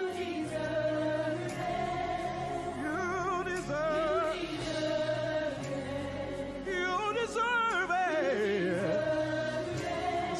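Gospel worship music. A lead singer holds long notes with wide vibrato over sustained backing harmonies and bass, and slides down in a falling run about eight seconds in.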